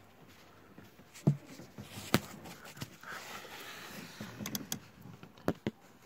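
Handling noise as a camera is moved about in a car's engine bay: scattered light clicks and taps, with a soft rustle about three seconds in.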